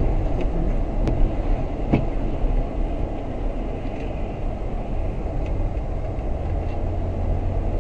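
Steady low rumble of a moving vehicle's engine and tyres on a wet road, heard from inside the cabin, with a couple of faint clicks about one and two seconds in.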